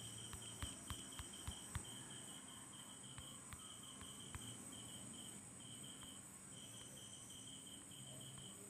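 Faint cricket chirping in the background: a steady run of short, high chirps repeating in quick trains with small gaps. A few soft clicks sound in the first two seconds.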